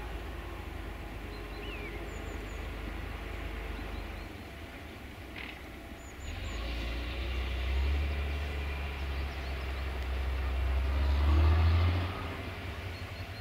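Distant low rumble of a General Motors-engined CFR class 65 diesel-electric locomotive working along the valley. It swells from about halfway through, peaks near the end and drops off sharply about a second before the end. Faint bird chirps are heard above it.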